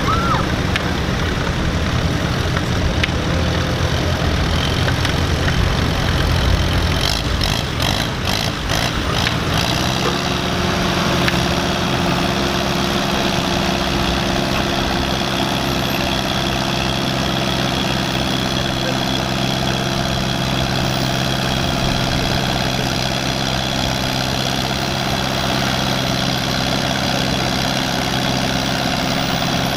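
Allis-Chalmers D-14 tractor's four-cylinder engine pulling a weight-transfer sled. It runs rough and low at first, with a brief rattle about eight seconds in, then settles into a steady, even running note for the rest of the pull.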